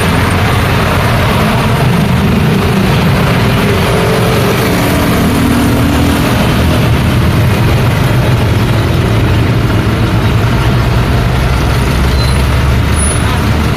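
Busy road traffic: a steady wash of engine and tyre noise from cars and trucks passing close by, with low engine hum that swells and fades as vehicles go past.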